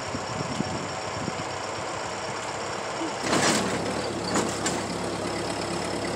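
Ford 8N tractor's four-cylinder flathead engine running steadily, with a brief loud rush of noise about three seconds in.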